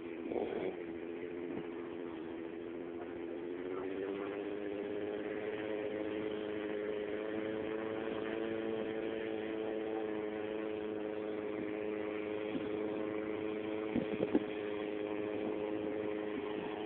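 Paramotor engine running steadily; its pitch rises a little a few seconds in, then holds.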